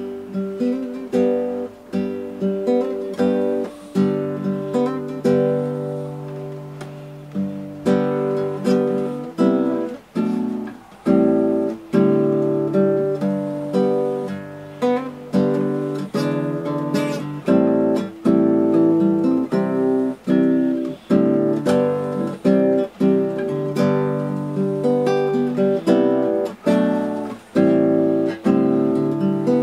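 Acoustic guitar music: plucked and strummed chords in a steady rhythm.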